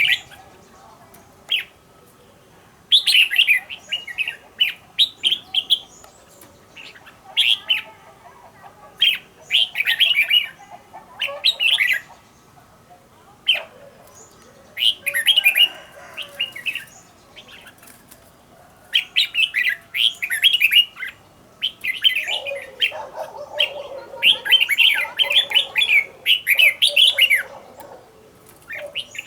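Red-whiskered bulbul singing: short, quick chirpy phrases of a second or two, repeated with brief pauses between.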